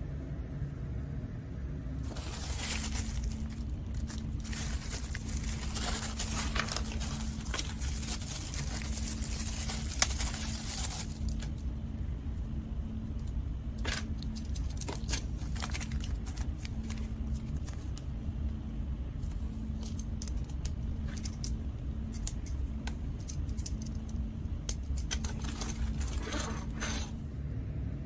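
Plastic toy wrapper bags crinkling and tearing, in a long stretch in the first part and again near the end, with scattered light clicks of hard plastic toys being handled, over a steady low hum.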